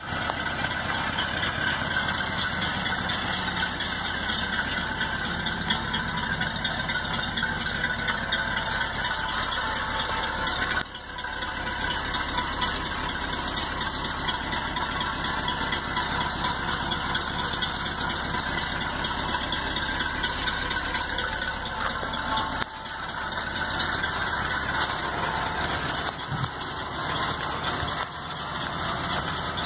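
1965 Ford F-100's 352 cubic-inch FE V8 idling steadily on a cold start, exhaust running through a new stock-style replacement muffler; the carburettor is not yet tuned.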